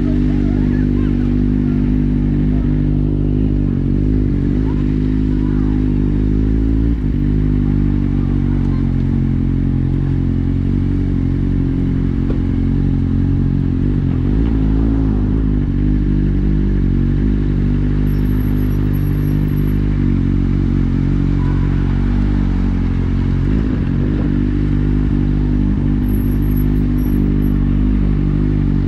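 Kawasaki Z750's inline-four engine, breathing through an Akrapovic exhaust with the dB killer removed, running at low, steady revs while the bike crawls, with a few small throttle changes along the way.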